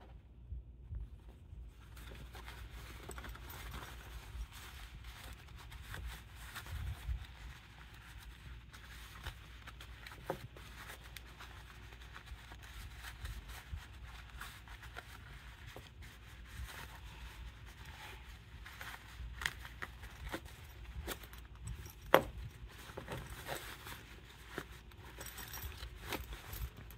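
Cotton fabric rustling and rubbing as a sewn purse is worked right side out through its turning gap, with scattered light clicks and taps from handling. One sharper click stands out about four-fifths of the way through.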